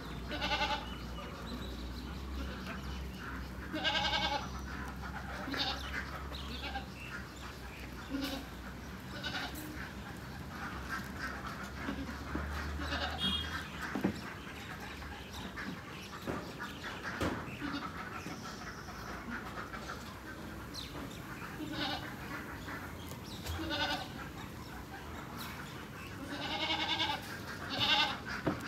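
Goats bleating on and off in a pen, one short call every few seconds, then several louder bleats close together near the end.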